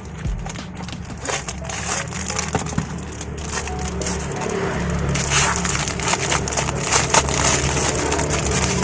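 Dense, irregular crinkling and crackling of plastic packaging being handled, heaviest in the second half, over steady background music.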